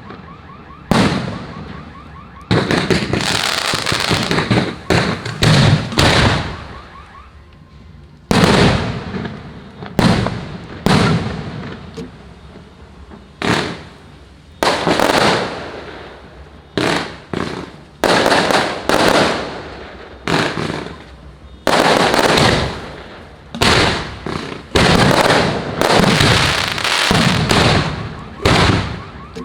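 Aerial firework shells bursting one after another, about twenty loud bangs. Each bang fades away over a second or so, and a few come in quick clusters.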